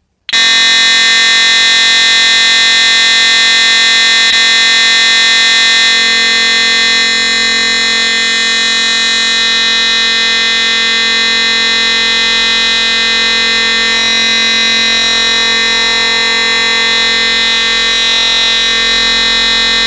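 EST Integrity fire alarm horn sounding continuously: a very loud, steady, harsh buzzing tone full of overtones. It starts about a third of a second in and does not pulse or break.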